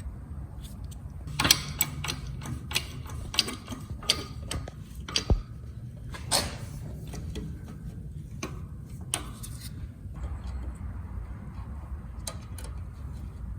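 Metal parts of an automatic transmission and a hand tool clinking and knocking as they are worked apart, a dozen or so sharp irregular clicks through the first ten seconds, then only a steady low hum.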